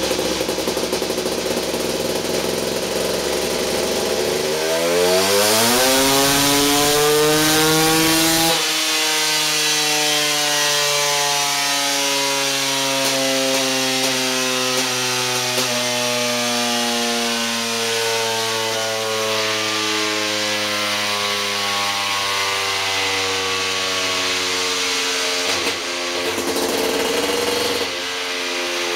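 KTM 380 SX two-stroke single-cylinder engine, fitted with an FMF Gnarly pipe and Powercore 2 silencer, making a full-throttle dyno pull: the revs climb steeply for about four seconds, then the throttle shuts off abruptly. The revs then fall slowly over some fifteen seconds as the engine and dyno roller wind down. There is a brief blip of throttle near the end.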